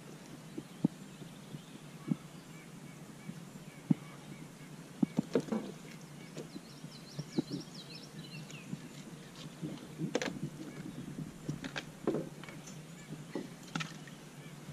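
Scattered light knocks and small splashes around a kayak on a river while a catfish is worked on a bank pole. A bird chirps briefly in the middle.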